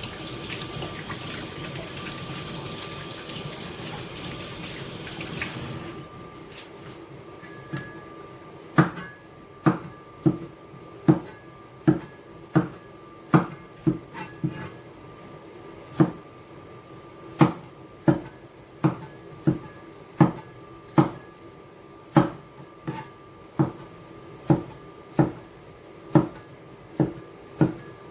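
Kitchen tap water running into a sink, cutting off abruptly about six seconds in. After a short pause comes a steady series of sharp chopping knocks, a little more than one a second: a knife cutting on a wooden cutting board.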